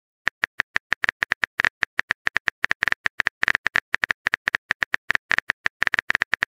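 Texting app's simulated keyboard typing sound: rapid, unevenly spaced key clicks, roughly ten a second, as a message is typed letter by letter.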